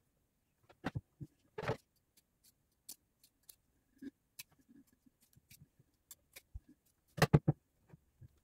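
Handling sounds of a glass jar and a hot glue gun on a wooden tabletop: scattered small clicks and taps, a couple of knocks about a second in, and a quick run of three louder knocks near the end as things are set down.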